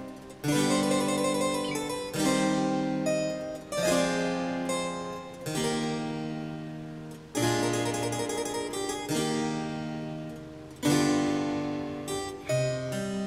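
Background music: a slow keyboard piece, chords struck about every one and a half to two seconds and left to ring out, with a few quicker notes near the end.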